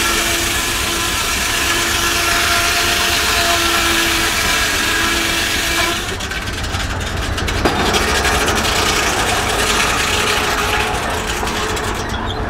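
Steam-powered portable sawmill running, the saw in a cut with a steady whine over a loud hiss. About six seconds in the hiss drops away and a fast rattling clatter of machinery takes over.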